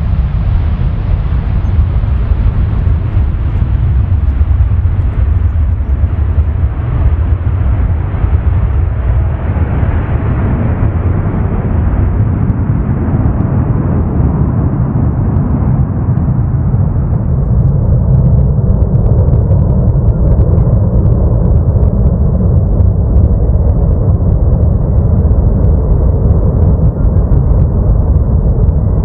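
Boeing 777-300ER's GE90-115B jet engines at takeoff power as the airliner climbs away: a heavy, steady rumble whose higher hiss fades gradually as the aircraft recedes.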